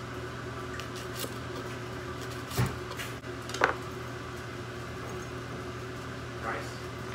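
A kitchen knife cutting through a shallot onto a hard cutting surface: a faint tap, then two sharp knocks about a second apart, over a steady low hum.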